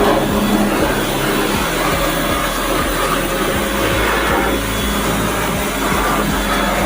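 A motor running steadily with a low hum under an even hiss, with no breaks or changes.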